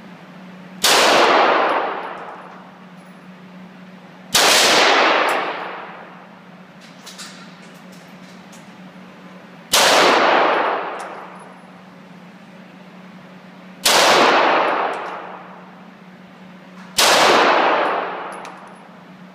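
Five single gunshots a few seconds apart, each cracking out and then dying away in a long echoing tail.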